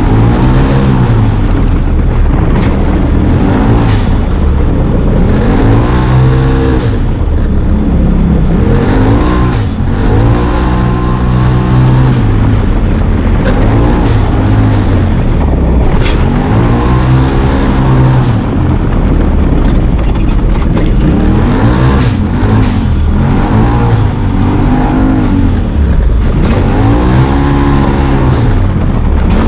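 Side-by-side UTV's engine revving up and falling back over and over as it races around a dirt motocross track. There are occasional sharp knocks now and then.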